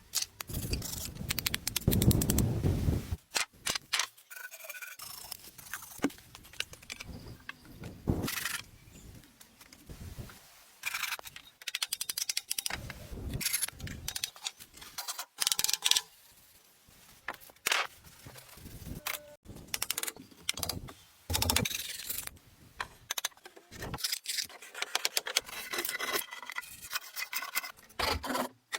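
Irregular hand-work sounds: scrapes, clicks and knocks coming in uneven bursts, with a longer, louder scraping stretch about two seconds in.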